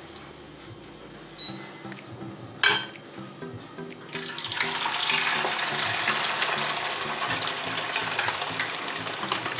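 Floured anchovy fritter batter dropped into hot oil in a frying pan, starting to sizzle about four seconds in and sizzling steadily after that. Before it goes in there is a single sharp clink about three seconds in.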